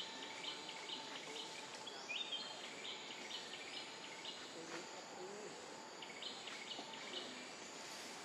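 Outdoor ambience: a bird calling in runs of short high chirps, over a steady background hiss.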